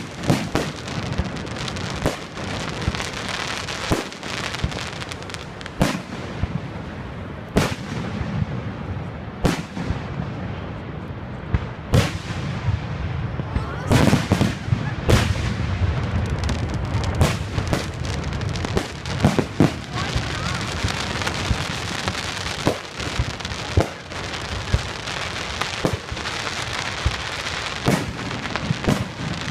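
Aerial fireworks shells bursting: many sharp bangs at irregular intervals, some close together, over a steady rushing, crackling noise.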